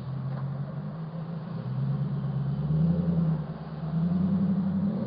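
A motor vehicle's engine humming steadily, growing louder about two seconds in, with a brief dip around three and a half seconds before it swells again.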